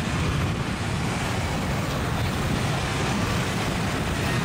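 Steady road traffic noise from a stream of motor scooters and motorbikes riding past, their small engines running.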